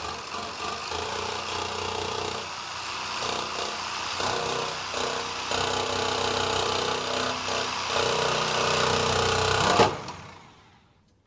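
Milwaukee Sawzall reciprocating saw running and cutting, its motor note dropping out and coming back several times. There is a sharp loud peak just before the end, after which the sound fades away.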